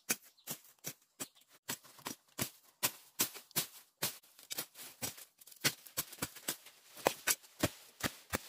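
A long-bladed knife chopping repeatedly at plant stems and soil: sharp hacking strokes, about two or three a second.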